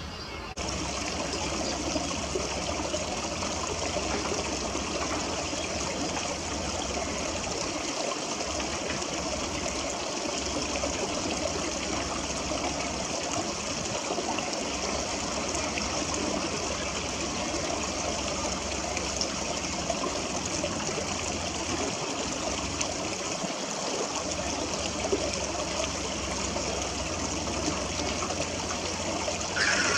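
Steady rush of water running in a concrete channel, coming in about half a second in.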